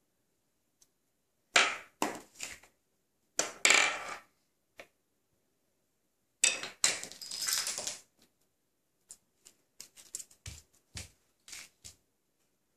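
Small wooden pieces clattering and knocking on a hard surface in a few short bursts, the longest a jagged run of clicks lasting about a second and a half, then scattered light taps and a couple of duller knocks.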